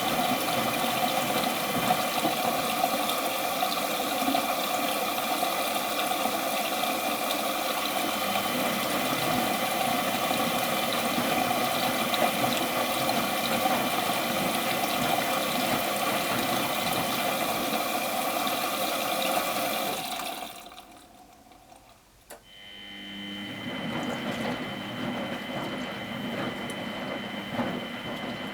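Miele Professional WS 5426 washing machine with water rushing steadily through it; the rush dies away about 20 seconds in, a click follows, and a quieter steady machine hum with a faint whine takes over.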